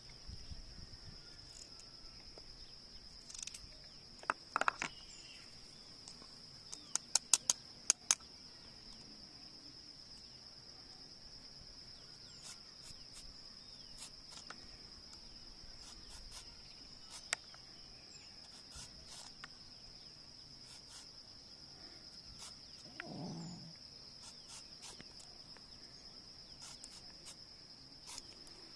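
Steady high-pitched chirring of insects, likely crickets, with scattered sharp clicks, including a quick run of about five some seven seconds in, and a brief low sound a little before the end.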